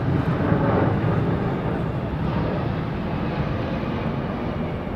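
Large jet aircraft flying low overhead: a steady roar of jet engines, heaviest in the low range and slowly fading as they pass.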